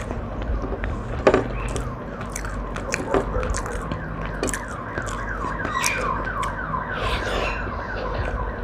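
An electronic siren or alarm sounds in the background in fast, repeating falling sweeps, about four a second, from about three seconds in. Over it come a few sharp clicks and crunches from eating close to the microphone.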